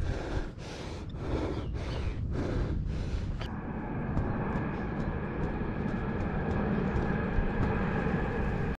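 A person breathing hard in quick, regular breaths, about two a second. A few seconds in, this cuts off suddenly to a steady low rumble with a faint high hum.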